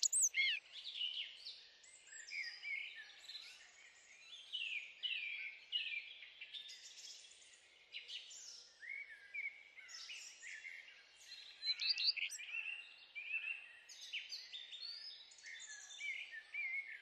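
Songbirds singing, several chirping and warbling phrases overlapping in quick succession, loudest right at the start.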